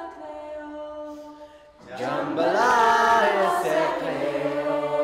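A group of voices singing a chant without instruments, in long held notes. About two seconds in, more voices come in louder, then settle into a steady held chord with a low part underneath.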